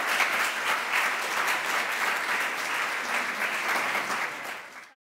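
Audience applauding, a dense steady clapping from a seated crowd in a hall that fades away and cuts off just before the end.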